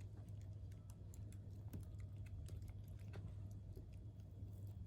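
A cat chewing napa cabbage leaves: faint, irregular little crunches and clicks of its bites, over a steady low hum.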